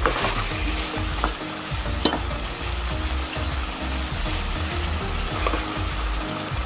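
Drumstick and potato curry with ginger-garlic paste sizzling in a metal pot while a spoon stirs it, scraping the pot now and then, with sharp scrapes near the start and about two seconds in. The paste is being fried into the vegetables until its raw smell is gone.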